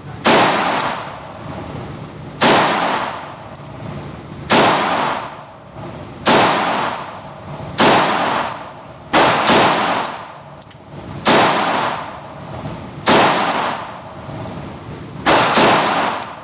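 9mm HK VP9-B pistol fired slowly indoors: about eleven shots, roughly one every two seconds with two quick doubles, each sharp crack followed by a ringing echo off the range walls.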